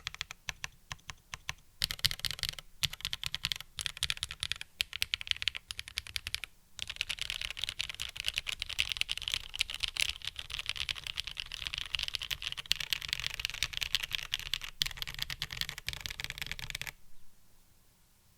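Typing on a Geon Frog TKL custom mechanical keyboard with linear MX Black-style switches (Kailh black stems in Cherry MX HG Black housings) mounted on an FR4 half plate. A few separate keystrokes give way to fast, continuous typing, with a brief pause about a third of the way in; the typing stops shortly before the end.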